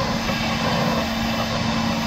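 1919 Krauss-built steam locomotive No. 92.2271 running slowly along the track: a continuous rumble with a steady hum under it.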